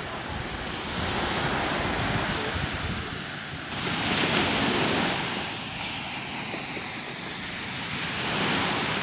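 Sea waves washing onto a beach, the surf swelling three times, loudest about four seconds in.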